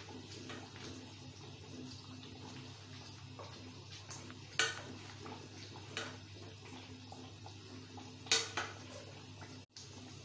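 Kofta curry cooking in a metal pot: thick masala gravy simmering under a steady low hum, with a few sharp taps or pops, the loudest about four and a half seconds in and twice just after eight seconds.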